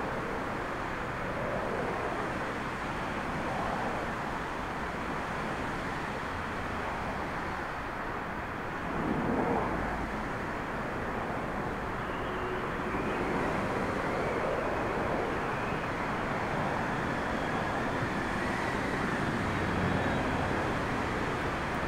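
Jet engines of a twin-engine airliner running on the runway, heard from a distance as a steady rush over wind rumble. From about halfway through, a faint whine rises and the sound grows a little louder as the engines spool up and the aircraft begins its takeoff roll.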